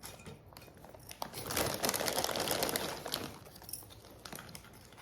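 Dry potpourri crinkling and rustling as it is handled and pushed around in a bowl, loudest in a stretch around two seconds in.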